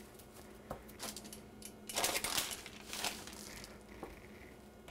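Plastic cling wrap crinkling as hands fold it tightly around a piece of meat: several short rustles, loudest about two seconds in.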